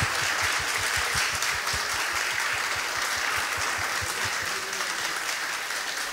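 Audience applauding, with a few claps close by standing out in the first few seconds; the applause eases off slightly near the end.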